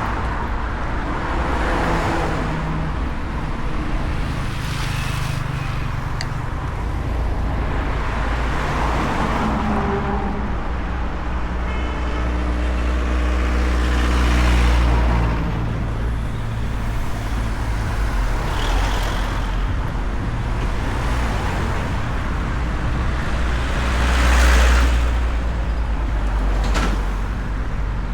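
Steady street traffic with motor vehicles running and passing close by; two louder passes, one about halfway through and another near the end.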